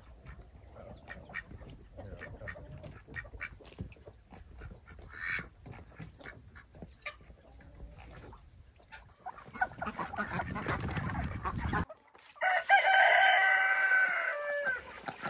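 A rooster crows loudly about twelve seconds in: one long call that falls away at the end. Before it come softer, scattered calls of the chickens and ducks in the yard.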